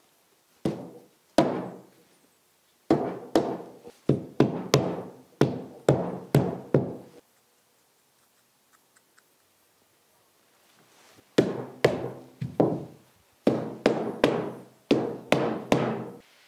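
Mallet tapping small plastic bow-tie brackets into the corner slots of a wooden mirror frame on a padded table. The knocks are sharp and quick, each ringing briefly, in two runs of about a dozen or more with a pause of a few seconds between.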